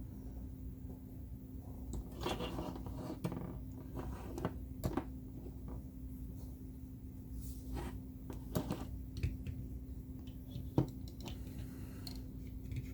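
Small plastic toy figures being handled and set down: scattered clicks, taps and brief rustles, the sharpest click about eleven seconds in. A steady low hum runs underneath.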